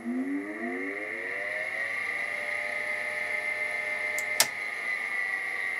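Rusty 230-volt ball-bearing cooling fan spinning up: its hum rises in pitch over the first two seconds, then settles into a steady whine over a higher rushing tone. A single sharp click sounds about four seconds in.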